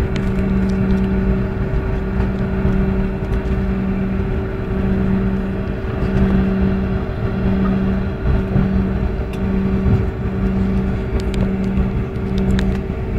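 Steady jet airliner engine and airflow noise heard inside the passenger cabin after touchdown while the plane slows and taxis. A low hum under the rumble pulses on and off about once a second.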